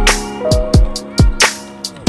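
Background music with a drum beat and pitched melody; the deep bass drops out for most of these two seconds and comes back at the end.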